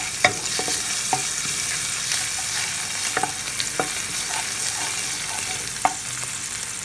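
Ginger-garlic paste sizzling in hot oil in a metal pan, with a steady hiss, while a wooden spatula stirs it, knocking against the pan a few times.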